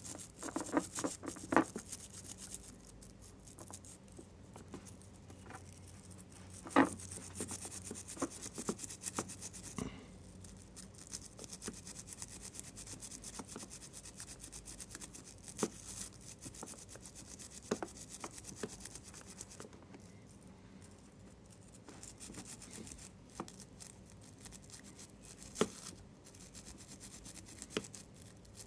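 Toothbrush scrubbing the contacts of a disassembled Logitech Romer-G keyboard switch with isopropyl alcohol, a soft uneven scratchy brushing, to clear old oil from the connection. Scattered sharp plastic clicks and knocks are heard now and then, the loudest about seven seconds in.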